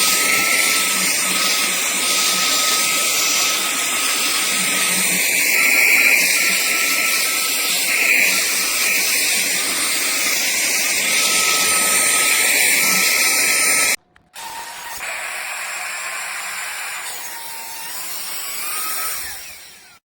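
CUGEFRE 25000Pa cordless handheld vacuum cleaner running, a steady high-pitched motor whine over a rush of air. About fourteen seconds in it cuts off, and a quieter stretch of the motor follows, dipping and rising slightly in pitch, then fades out.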